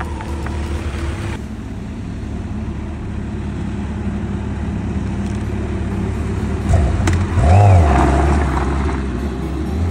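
Sport motorcycle engine running with a steady low hum, then revved, loudest about seven to eight seconds in as the bike moves off.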